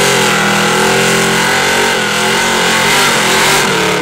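Supercharged Plymouth Duster drag car's engine held at high revs during a burnout, rear tyres spinning in smoke. It is a loud, steady engine note with slight wavers in pitch, and it ends abruptly.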